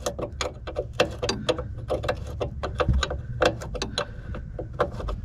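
Repeated sharp metallic clicks of a spanner being worked on a brake pipe union, a few a second and unevenly spaced, as the fitting is loosened.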